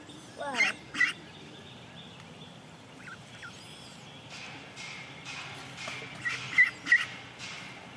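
Young domestic ducks peeping: a pair of calls about half a second in, then three short peeps near the end, over the faint wash of a shallow stream.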